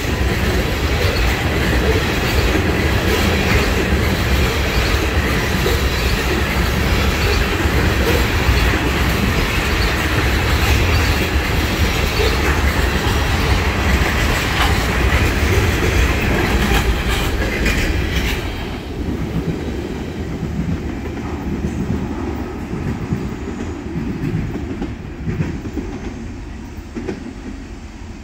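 Freight train of tank cars rolling past close by: a steady loud rush of wheels on rail with repeated clicks. About two-thirds of the way through the last car goes by, the sound drops suddenly, and it fades as the train moves away.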